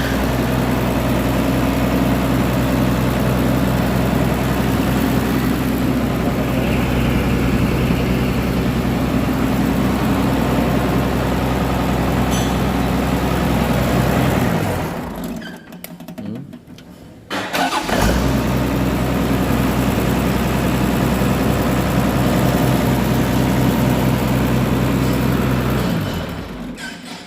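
Mitsubishi Fuso 6D16 inline-six diesel engine running steadily. It stops about halfway through, starts running again a few seconds later, and dies away near the end.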